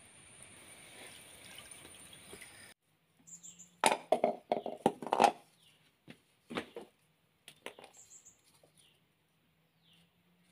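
After a few seconds of faint steady hiss, dry coconut shells are handled on a concrete floor. A quick run of hollow knocks and clacks comes about four seconds in, and a few more follow a little later. A bird chirps faintly now and then.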